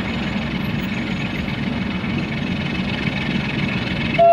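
Electroputere LDE2100 (060-DA) diesel-electric locomotive's Sulzer engine running steadily as it hauls a heavy log train slowly through the station. A much louder steady tone cuts in at the very end.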